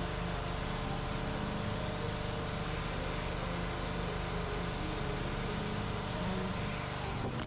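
Gas pressure washer with a Honda GCV190 single-cylinder engine running steadily while the wand sprays water onto concrete, with a steady hiss of spray over the engine's drone.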